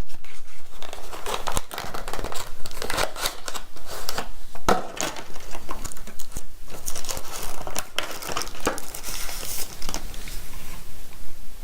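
Packaging being handled as a USB-C adapter is unpacked from its box: irregular crinkling and rustling of the wrapping, with many small clicks and scrapes.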